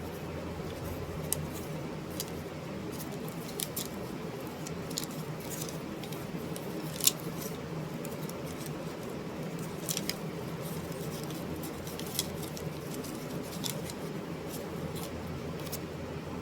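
Irregular light clicks and ticks, scattered unevenly with a sharper one about halfway, over a steady low hum.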